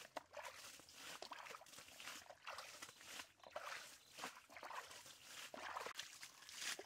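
Water splashing over and over as a shallow muddy pool is bailed out with a plastic bowl, each scoop of water thrown out with a splash, about one or two a second.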